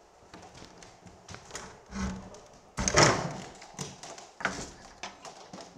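Scattered footsteps and taps of people moving through a room, with a louder thump about three seconds in.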